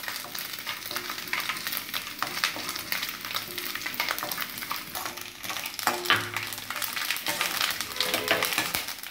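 Small pieces of coconut sizzling in hot ghee in a stainless steel kadai, fried toward golden brown, with a spatula scraping and clicking against the pan as they are stirred.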